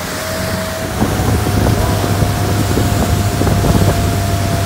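Water-ski tow boat's engine running steadily under way, with water rushing in the wake and wind buffeting the microphone; the engine hum grows louder about a second in.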